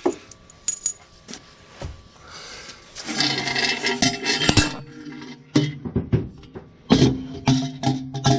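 A few sharp metallic clicks and knocks of hand-tool work, then background music with a beat of sharp strikes coming in about three seconds in.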